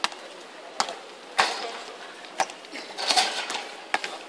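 Basketball bouncing on a hard court as it is dribbled: about five sharp, unevenly spaced bounces, with brief bursts of other noise from play in between.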